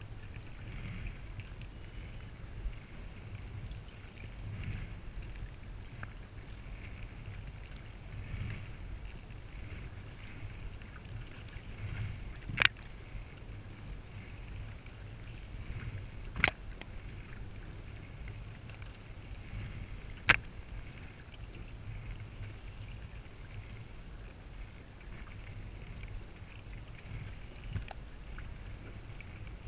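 Kayak paddling: a double-bladed paddle dipping and swishing through the water in a steady rhythm, about one stroke every two seconds, over a low rumble of wind on the microphone. Three sharp knocks, about four seconds apart, come in the middle.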